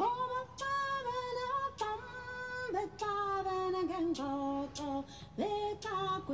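A woman singing a slow melody in long held notes that step down in pitch through the phrase.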